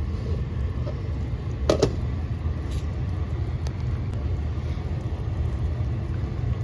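A steady low rumble, with one sharp clack about two seconds in.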